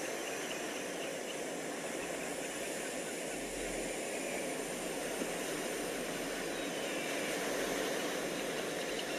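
Steady outdoor background noise: an even hiss with no distinct calls or knocks standing out.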